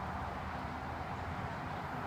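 Steady low rumble of outdoor background noise, with no distinct sounds standing out.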